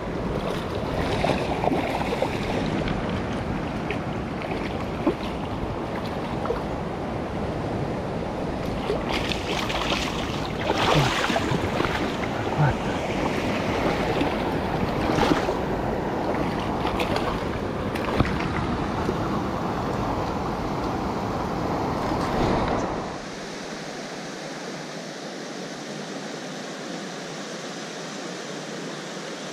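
Shallow river water rushing over rocks, with wind buffeting the microphone and a few short splashes. About 23 s in the low wind rumble stops, leaving a steadier, quieter rush of the stream.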